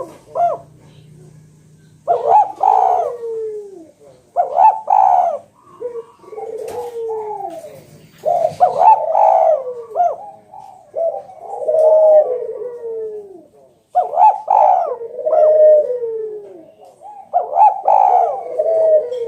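Spotted dove (tekukur) cooing loudly and over and over: about seven phrases of deep falling coo notes, one every two to three seconds with short gaps between. This is the strong, frequent song of a keen male, the kind used to call out a rival.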